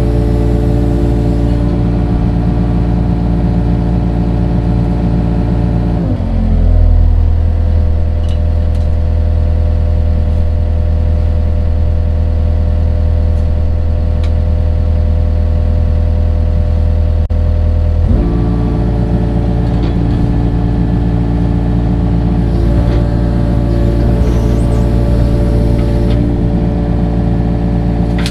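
Engine of heavy digging equipment running steadily. About six seconds in its pitch drops and it holds lower until about eighteen seconds in, when it rises back to its earlier speed.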